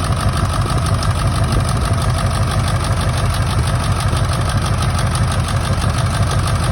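1999 Ford F-350's 7.3 L Powerstroke turbo-diesel V8 idling steadily, running rough from an injector misfire.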